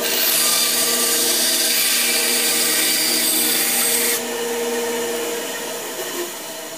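Craftsman band saw running while its blade trims a row of wooden pegs held in a drilled jig: a loud cutting hiss for about four seconds that stops abruptly. The motor hum carries on and fades near the end.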